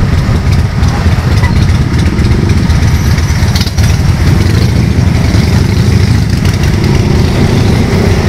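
Motorcycle engine running at low speed in stop-and-go traffic, a steady low rumble with the engines of the surrounding motorbikes and cars mixed in.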